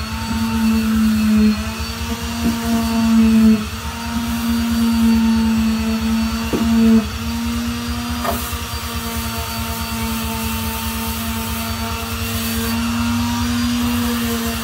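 Handheld electric power tool running steadily with a constant motor hum and a pulsing low rumble, working rust off a steel truck step rail. It is louder in surges over the first several seconds, then runs evenly.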